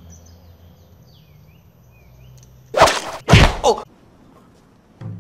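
A long float-fishing pole is whipped up in a strike on a bite, giving two sudden loud whooshes about half a second apart, a little under three seconds in. Before them there is only a faint outdoor background with thin, high bird calls.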